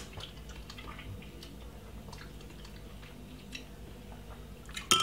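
Thick porridge simmering in a saucepan, giving faint scattered plops and soft pops over a low steady hum. Just before the end a metal spoon clinks once with a short ring.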